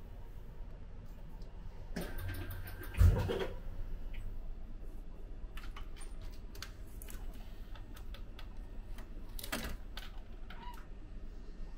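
Cup-type drink vending machine dispensing a drink: a short whir from the machine and a heavy thump about three seconds in, then a series of clicks and knocks as its dispensing door is opened and the paper cup is taken out.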